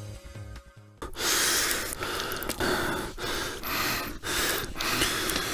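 Electronic music cuts off about a second in. It is followed by a run of loud, hissing, gasping breaths close to the microphone, each lasting about half a second to a second.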